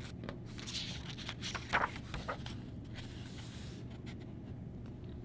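A page of a picture book being turned by hand: paper rustling and sliding for about three seconds, with a couple of soft taps partway through, over a faint steady hum.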